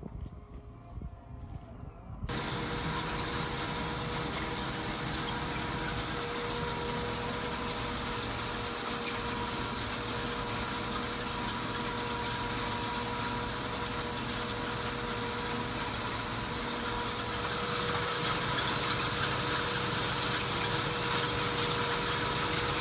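Tractor engine running steadily under load, heard from inside the cab, with a steady whine over it; it starts abruptly about two seconds in after a quieter stretch of open-air field noise.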